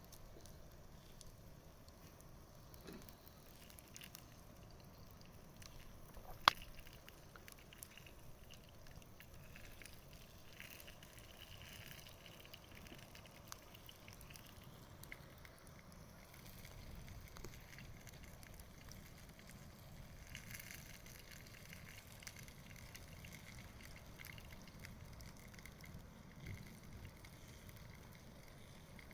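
Campfire burning with soft, scattered crackles and one sharp pop about six and a half seconds in.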